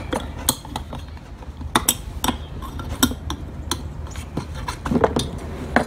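Scattered sharp metallic clicks and clinks of needle-nose pliers working against a steel fuel pump hanger as the stock fuel pump is freed from it, over a low steady hum.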